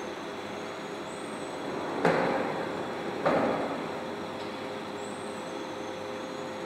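Installation machine of projectors on a rail carriage running with a steady mechanical hum. Two sudden loud mechanical noises come about two and three seconds in, each dying away over about half a second, as the projectors shift position.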